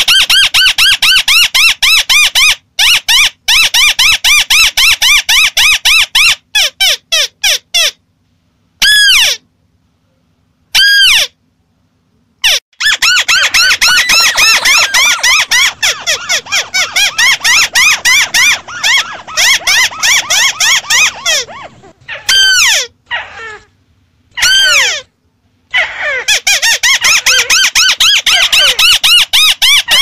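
Crakes calling in a loud lure recording: rapid runs of harsh, falling notes, often several birds overlapping in a dense chatter, broken by a few short silences.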